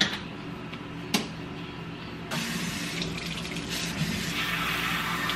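Kitchen faucet's pull-down sprayer running, water spraying over wet hair and splashing into a stainless steel sink. The spray grows louder about two seconds in, and there is a single sharp click about a second in.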